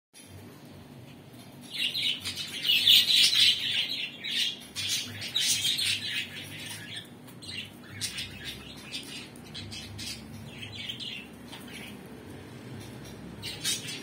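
Budgerigars chirping and chattering in quick bursts. The chirping is loudest and densest from about two to seven seconds in, then thins to softer, scattered chirps, with one more short burst near the end.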